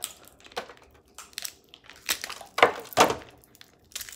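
Cooked crab cluster shells cracked and snapped apart by hand: a series of sharp cracks and crunches, the loudest two close together a little past the middle.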